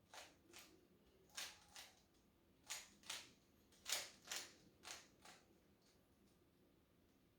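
Plastic Rubik's cube being turned by hand during a solve: about ten faint, sharp clicks of the layers snapping round, coming in pairs, then stopping after about five seconds.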